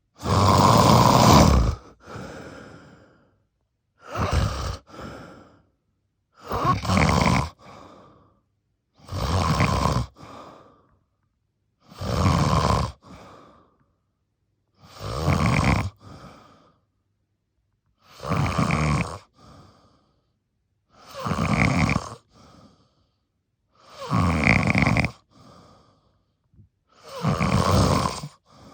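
A person snoring deeply: about ten loud snores, each about a second long and coming every two and a half to three seconds, each trailing off into a fainter breath, with silence between.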